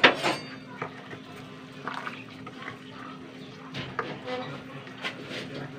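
A utensil clinks against a steel bowl and cooking pot as green vegetables are dropped into the broth, with small liquid splashes. The sharpest click comes at the very start, lighter ones follow at intervals, and a faint steady low hum runs underneath.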